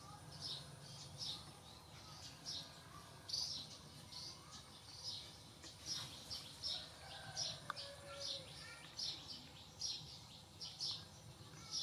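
Small birds chirping faintly: short, high chirps coming several times a second in an irregular string, over a low steady hum.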